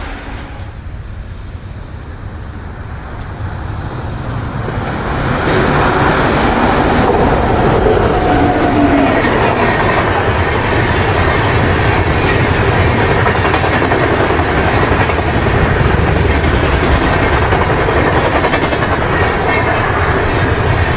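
Indian Railways express train passing at speed: the steady rumble and rattle of its coach wheels on the rails, growing louder about five seconds in as the coaches come alongside, then running on evenly.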